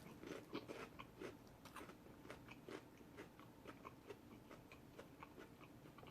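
Faint chewing of a sub sandwich close to the microphone: many small mouth clicks, busier in the first two seconds and thinning out after.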